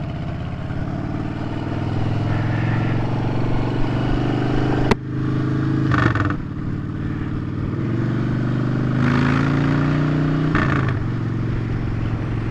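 Motorcycle engine running under way as the bike pulls off and accelerates, its note rising within each gear and dropping briefly twice at gear changes. A single sharp click comes about five seconds in.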